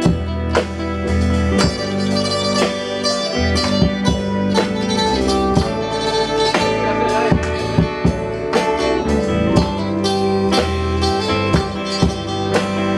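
Instrumental band music: a plucked string instrument plays the melody over a deep bass line and a steady drum beat.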